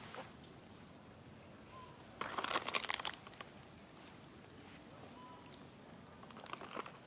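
Crackly rustling of dry ground litter as pigtailed macaques move and pick at the ground: a loud burst about two seconds in and a shorter, fainter one near the end. A steady high drone of insects runs underneath.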